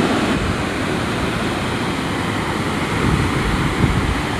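Loud, steady rushing of a waterfall: an even wash of noise.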